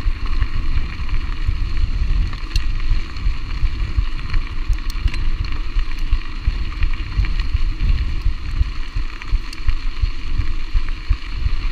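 Mountain bike rolling along a gravel road, heard on the rider's action camera: a loud, gusty low rumble of wind on the microphone mixed with tyre noise, and a few small clicks and rattles.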